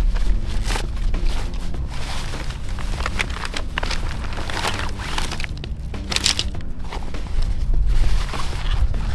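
A fabric tent stuff sack rustling as it is handled and pulled open, with a few sharp clicks from the handling.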